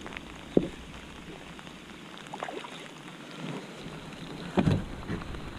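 Steady hiss of heavy rain falling on the water and the canoe, broken by two short thumps: one about half a second in and a louder one near the end.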